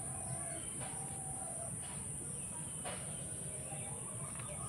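A chicken clucking faintly in the background, a few short calls, over a steady low background noise.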